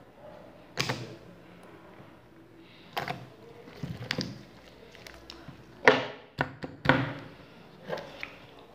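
Green slime being squeezed and pressed by hand, giving about six sharp wet clicks and pops as air is trapped and released, the loudest two a little past the middle.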